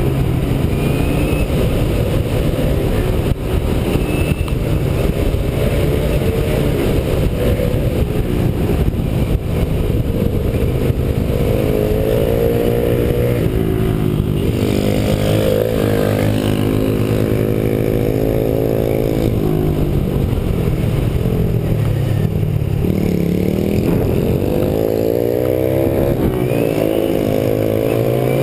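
Motorcycle engine running under way, heard from on the bike with wind noise. Its pitch rises and falls with the throttle, dipping and climbing again twice in the second half.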